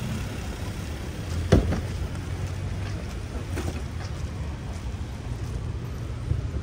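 Steady low rumble of street traffic with wind on the microphone, and a single sharp thump about a second and a half in.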